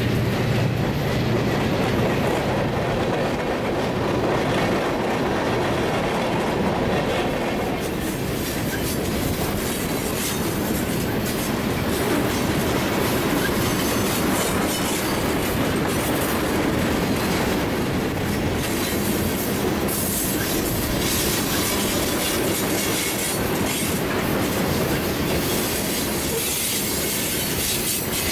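Freight train cars, hopper cars and then tank cars, rolling steadily past, with steel wheels running on the rails. Higher-pitched wheel noise comes in during the last third.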